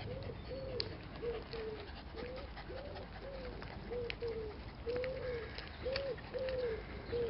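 A pigeon cooing in a steady run of short, arching coos, about two a second.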